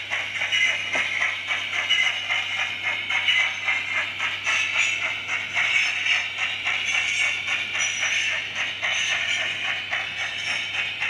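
Model train running on its track: a continuous mechanical rattle and whirr of small wheels and motor, with rapid little clicks, over a steady low hum.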